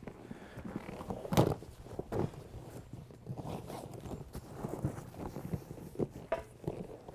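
Folding canoe's hull skin being folded up by hand: rustling and scraping of the hull material with several irregular knocks, the loudest about a second and a half in.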